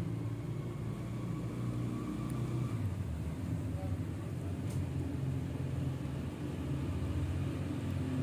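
Steady low engine-like rumble with a hum that shifts a little in pitch now and then, and one short tick about halfway through.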